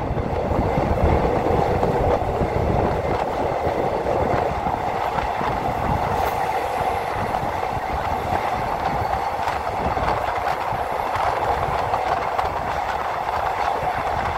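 Passenger train running along the line, a steady rumble of wheels on the rails heard from inside the carriage.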